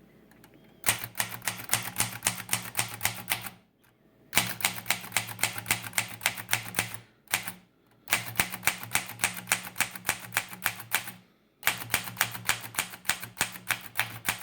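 1931 Remington Portable No. 3 typewriter being typed on: rapid key strikes, about six a second, in four runs of about three seconds each with short pauses between. The keys strike cleanly, none of them sticking.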